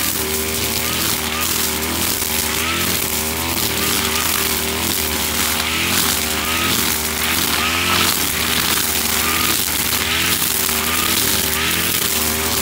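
Husqvarna 542RBS backpack brush cutter's two-stroke engine running at high revs under load, its pitch dipping and recovering again and again as the 3.5 mm nylon line cuts through thick grass, with the hiss of the spinning line and cut grass.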